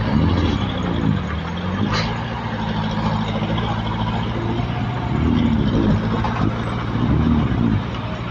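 Small crawler bulldozer's diesel engine working under load as it pushes rocky soil, its pitch rising and falling several times as the load comes on and eases. A sharp knock about two seconds in.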